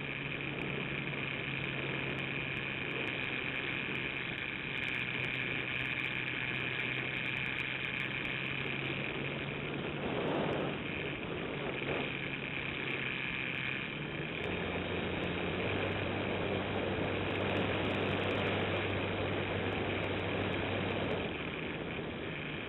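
Radio-controlled model airplane in flight, heard from its own onboard camera: the motor and propeller run with a steady high whine and a low hum over rushing air. The pitch shifts about two-thirds of the way in, as the throttle changes, and shifts back near the end.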